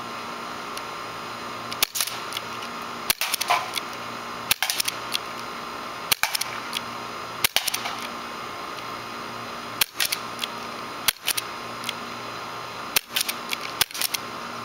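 CO2 airsoft HK USP pistol firing a series of sharp pops, one every second or two. The steady hum of a running air-conditioner condenser unit underlies it.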